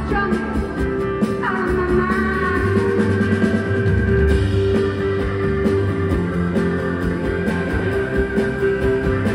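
Live band playing an instrumental break with no vocals: electric guitars and drum kit with long held notes, heard loud from the audience in a concert hall.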